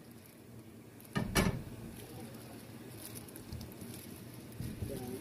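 A frying pan being set back down on a gas stove's burner grate with a short metal clunk about a second in. After it comes a faint, steady crackle of cooking oil heating in the pan.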